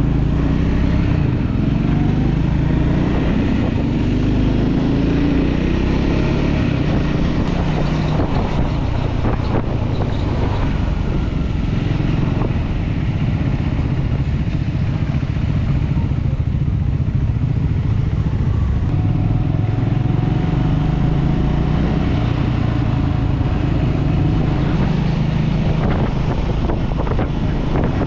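Motorcycle engine running on the move, steady apart from the engine note rising and falling a few seconds in.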